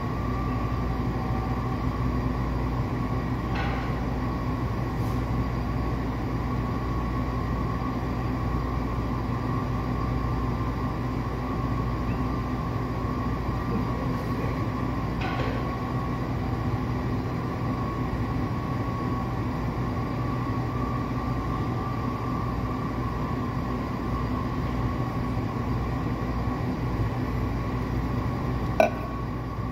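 Steady mechanical hum of café machinery with a low drone and a few faint steady tones. A sharp knock comes near the end, as the metal milk pitcher is set down.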